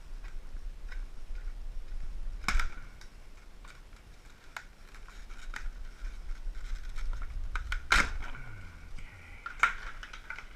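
Box and packaging being handled: scattered light clicks and rustles, with three sharper knocks about two and a half, eight and nine and a half seconds in, over a low steady hum.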